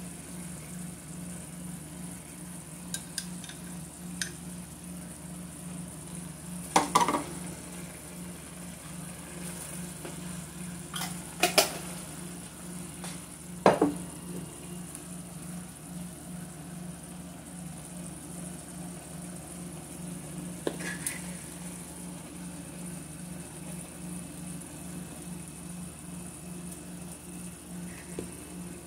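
Tomato stew base sizzling in a frying pan over a steady low hum. A metal spoon clinks and knocks against the glass jar and the pan several times, loudest in the first half, as blended tomato is spooned in.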